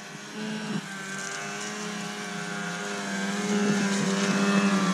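The two-stroke 850 twin of a 2019 Polaris Switchback Assault snowmobile running at a steady pitch, growing louder as the sled approaches and passes.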